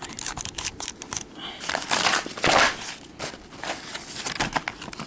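Action-figure packaging being worked open by hand: irregular crinkling and crackling of plastic and card, with two louder scrunches about two and two and a half seconds in.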